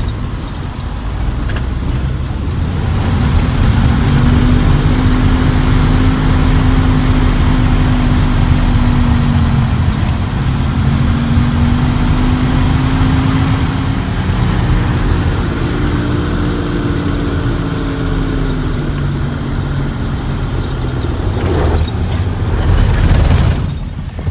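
Snowcat engine running under way, heard from inside the cab, over a continuous low rumble; the engine note rises and falls slowly as it drives. Near the end the sound briefly turns into a louder rushing noise.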